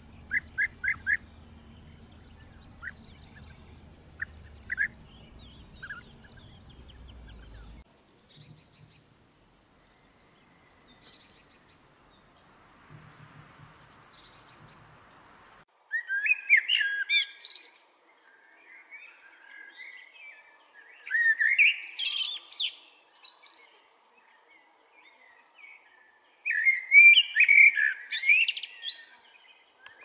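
Common blackbird singing: three loud warbling song phrases a few seconds apart, each mixing lower fluting notes with higher twittering, in the second half. Before them come short, sharp bird chirps over a low background rumble, then a few faint high notes.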